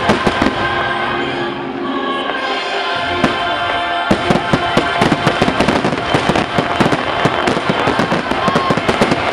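Aerial firework shells bursting over loud show music. From about four seconds in, the bangs and crackles come thick and fast in a rapid volley.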